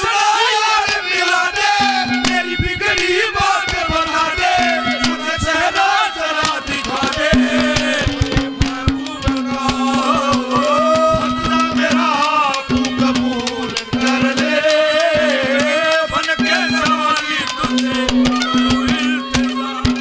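Live Haryanvi ragni accompaniment played without singing: a wavering melody line over a held low note that keeps breaking off and coming back, driven by fast hand-drum strokes.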